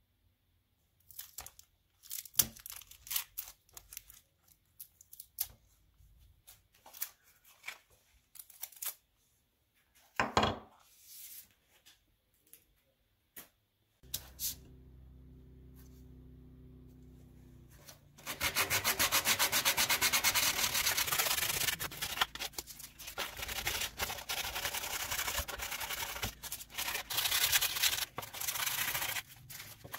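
Scattered knocks and taps through the first half. Then, from just over halfway in, 120-grit sandpaper is rubbed rapidly back and forth by hand over the wooden handle piece of an old handsaw, a steady scratchy hand-sanding noise.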